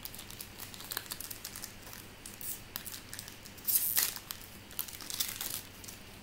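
Foil wrapper of a baseball card pack crinkling and crackling as it is torn open and handled, with a louder crinkle about four seconds in.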